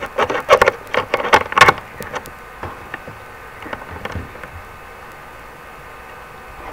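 A quick run of computer keyboard keystrokes for about two seconds, then a few scattered key or mouse clicks, over a steady electrical buzz.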